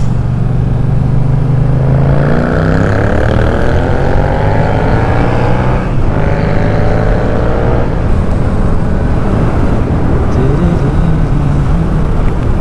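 Yamaha MT-07's parallel-twin engine accelerating: the revs climb from about two seconds in, drop with a quick upshift about six seconds in, climb again for a couple of seconds, then settle to a steady run.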